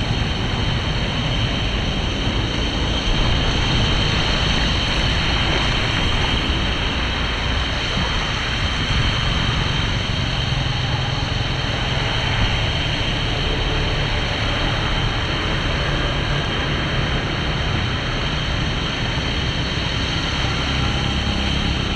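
Steady rushing of floodwater pouring into a street drain, an even, continuous wash of noise that holds for the whole stretch.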